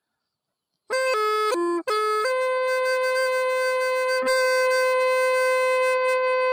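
Background music on a reedy wind instrument, starting about a second in: a few short notes, then one long held note.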